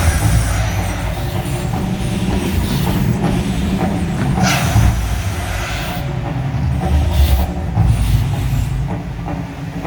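Deep, continuous rumble from a man-made volcano show, with a few hissing whooshes that come and go, the strongest about four and a half seconds in.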